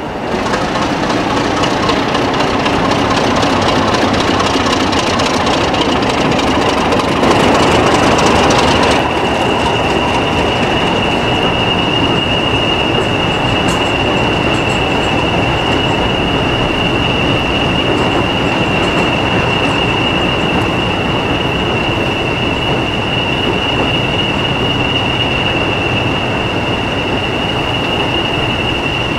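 Preserved diesel locomotive and its train running on the rails, a continuous heavy mechanical rumble. From about nine seconds in, a steady high-pitched whine runs over it.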